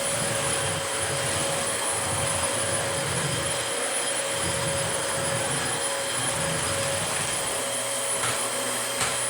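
Dyson DC25 Animal upright vacuum cleaner running steadily: a rush of air with a steady high motor whine. A brief click near the end.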